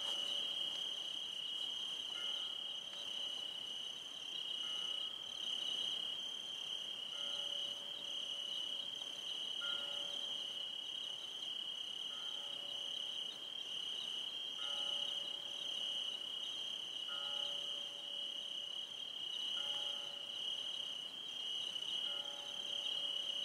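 Crickets trilling steadily and continuously. Faint short tones at changing pitches repeat about every two and a half seconds.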